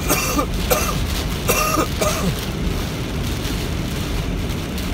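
Steady rain and tyre noise inside a car driving on a flooded road in heavy rain. Four short human vocal sounds, like a cough or throat clearing, come in the first two and a half seconds.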